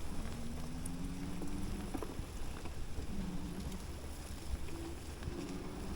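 An e-bike being ridden on a trail: tyres rumbling over the ground and wind buffeting the microphone. A faint whine rises and shifts in pitch now and then.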